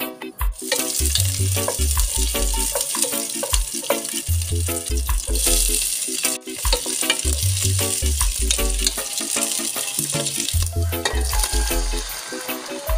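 Pork, garlic and onions sizzling as they fry in oil in a pot, stirred with a wooden spatula. The sizzle starts about half a second in and dies down near the end, over background music with a steady beat.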